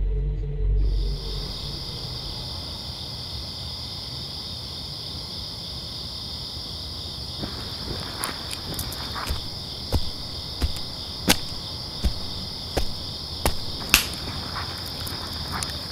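Forest ambience of crickets chirping steadily, starting about a second in after a low rumble dies away. From about halfway, a run of sharp footsteps, ending in a loud twig snap near the end.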